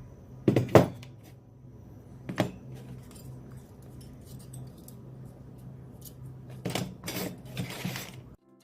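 Hard objects clattering as they are handled: sharp knocks about half a second in (the loudest), another around two and a half seconds, and a run of them near the end. A steady low hum runs underneath.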